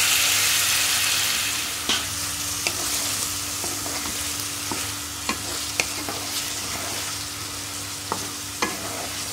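Saucy momos sizzling in a black kadai while a wooden spatula stirs them, knocking and scraping against the pan several times. The sizzle of the sauce, thinned with a little water, is loudest at first and dies down as it cooks.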